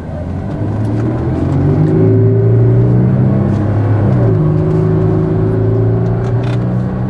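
Audi Q7 3.0 TDI V6 diesel heard from inside the cabin while accelerating: the engine note climbs, drops briefly about four seconds in, then climbs again.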